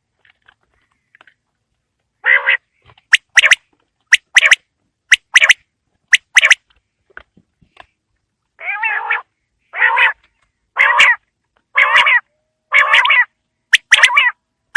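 Quail calling. It gives pairs of short, sharp notes about once a second, then near the middle a run of longer, harsher notes about once a second, and the sharp paired notes return near the end.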